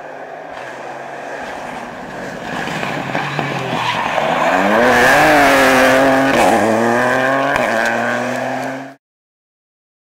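Ford Fiesta Rally3's turbocharged three-cylinder engine at full rally pace, growing louder and rising in pitch as it accelerates toward the listener, passing loudest about five seconds in with tyres scrabbling on loose gravel, a brief dip in revs about six and a half seconds in, then steadier as it pulls away. The sound cuts off abruptly about a second before the end.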